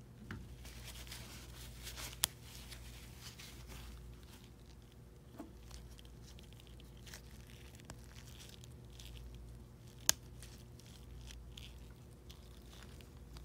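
Plastic ink-cartridge clip and pad being handled with gloved hands: scattered small rustles and taps while the pad is swapped, with two sharp plastic clicks about two seconds in and about ten seconds in, over a low steady hum.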